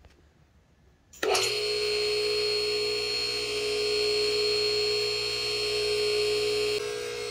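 The MaxJax M6K lift's 110-volt electric hydraulic power unit switches on about a second in and runs steadily with a motor whine, pumping fluid to raise the lift with the cylinder bleed caps cracked open to purge air from the hydraulic cylinders. It gets a little quieter near the end.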